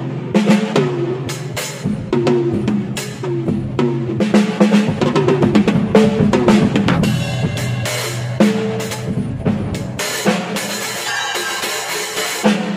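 Acoustic drum kit played in fills: closely spaced snare and tom strokes with bass drum, the toms ringing after each hit, and cymbals ringing through the last few seconds.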